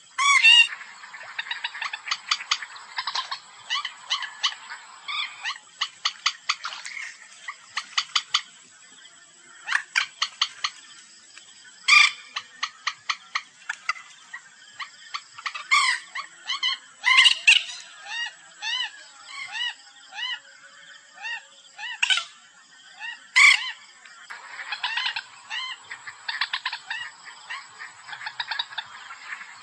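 Common moorhen calls played as a bird-hunting lure: repeated runs of rapid clicking notes mixed with louder harsh, falling calls, several birds' worth, going on throughout.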